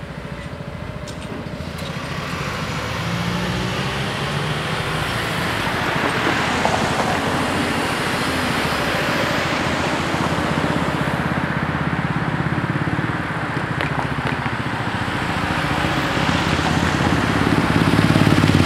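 Cars driving over a railway level crossing one after another, with engine and tyre noise swelling as each goes by. Near the end a motorcycle comes across close by and is the loudest sound.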